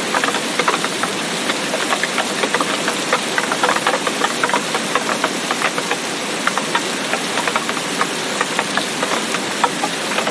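Steady heavy rain: an even wash of falling water with many close, irregular drop hits ticking through it.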